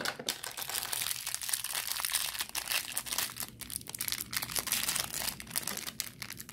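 A pink glossy plastic blind-bag wrapper from a L.O.L. Surprise ball being crinkled and pulled open by hand. It makes a continuous, dense crackle of many small crinkles.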